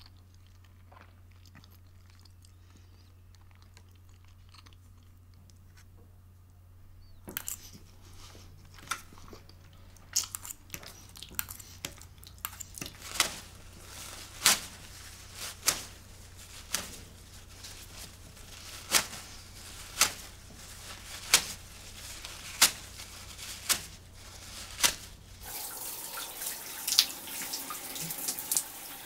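A faint steady low hum, then a tap dripping into a stainless-steel sink, the drops settling to about one a second. Near the end a hand-held shower starts running.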